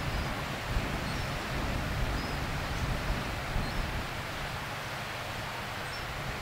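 Wind rumbling on the microphone over a steady wash of small waves on the shore, with a few faint, short, high chirps.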